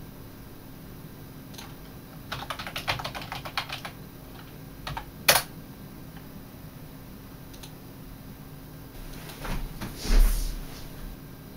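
Typing on a computer keyboard: a quick run of keystrokes, then a few more and one hard single key press. Near the end comes a louder rustle with a thump.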